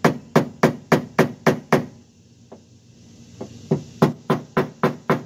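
A hammer strikes a tape-wrapped wooden body block held against a car's dented steel fender, knocking down the raised crease to relieve the compression around the dent. The blows come in two quick runs of about four a sharp knock each second, with a pause of about two seconds between them. Each knock leaves a short ring from the sheet metal.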